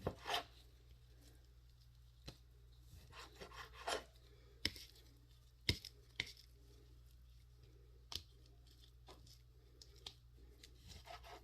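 Knife cutting raw chicken on a cutting board: irregular sharp taps and short slicing strokes, a second or more apart, fairly faint.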